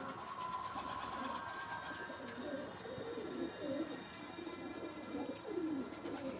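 Domestic pigeons cooing, several low coos overlapping one after another, with faint steady high-pitched tones behind them.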